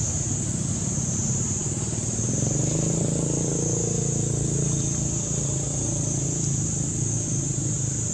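A steady, low engine hum from a motor vehicle running, with a constant high-pitched hiss above it.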